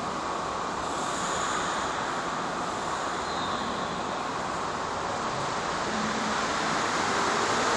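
Rubber-tyred Montreal Metro train starting to pull out of the station: a steady rushing noise that grows louder as the train gathers speed in the last few seconds.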